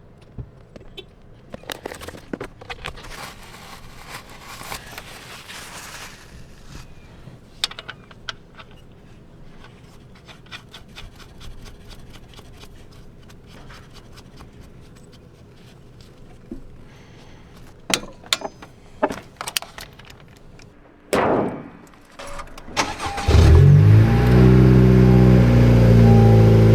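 Scattered clicks and handling noises with a louder knock, then about 23 seconds in the 10th-gen Honda Civic Si's engine starts, rises in pitch and settles into a steady idle. Coming after the oil and transmission fluid change, this is the first start on fresh fluids.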